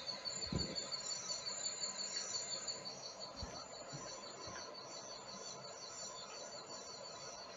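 Crickets chirping in steady, evenly repeating high trills, with a few faint low thuds in the first few seconds; the chirping grows slightly quieter after about three seconds.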